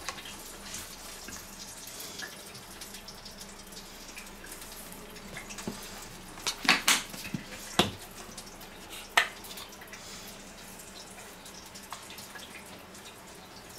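Sauce squeezed from plastic squeeze bottles of mayonnaise and ketchup: a few short, wet squirts and splutters between about six and nine seconds in, over a faint steady hiss.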